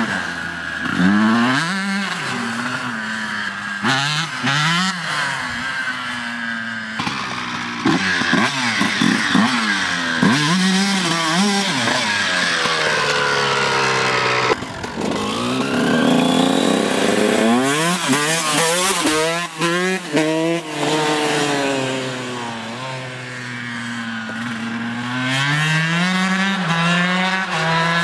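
Honda CR125's single-cylinder two-stroke engine, fitted with an FMF Gold Series rev pipe and freshly rejetted, revving up and falling off again and again as the bike is ridden, its pitch climbing and dropping with each throttle blip and gear change. The sound breaks off abruptly about halfway through and picks up again.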